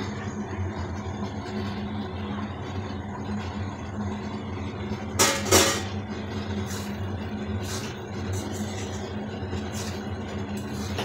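A steady low machine hum throughout, with two sharp clinks of a metal spatula against the metal kadai about five seconds in, then lighter taps and scrapes as the potato curry is stirred.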